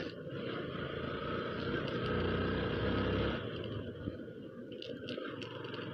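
Motorcycle riding at low steady speed, about 30–35 km/h: engine and wind/road noise heard from the rider's camera, louder for about a second near the middle.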